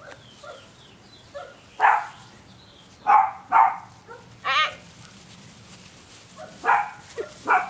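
Havanese puppies barking in play: about six short, high yips, spread out, one with a wavering pitch about four and a half seconds in.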